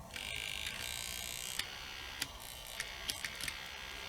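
Nakamichi 1000ZXL cassette deck's fast forward and rewind motor running: a thin, steady high whir with a few sharp clicks. The owner judges it not too bad, needing only a drop of oil.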